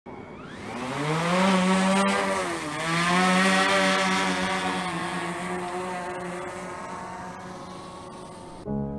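Quadcopter drone's motors and propellers spinning up for takeoff with a rising whine, dipping in pitch for a moment about two and a half seconds in and rising again. It then settles into a steady hum that slowly fades as the drone climbs away, and soft piano music cuts in just before the end.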